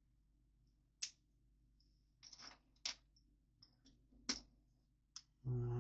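Plastic Lego pieces clicking as they are handled and snapped together: a few separate sharp clicks and a brief rattle. A short low voiced hum comes just before the end.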